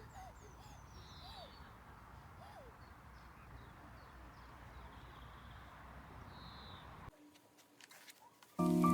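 Birds calling over a steady background hiss: a few short falling chirps and some lower falling calls in the first few seconds. The sound cuts to near quiet about seven seconds in, and music starts just before the end.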